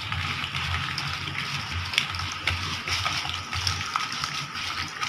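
Chicken pieces being squeezed and kneaded by hand into a wet curd-and-spice marinade in a plastic bowl: a steady wet squishing noise with small clicks and soft low thumps about two or three times a second.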